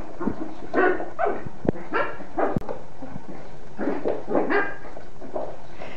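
Small dog barking in short, high yaps, about eight in a row with brief gaps, while play-fighting with a cat, with a few sharp knocks between the barks.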